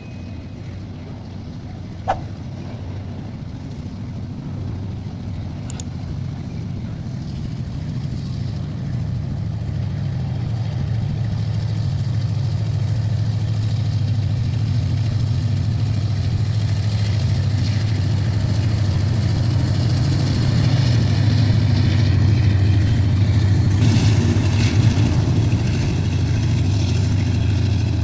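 Diesel freight locomotive engine running with a low, steady drone that grows gradually louder as the train draws closer, with a sharp click about two seconds in.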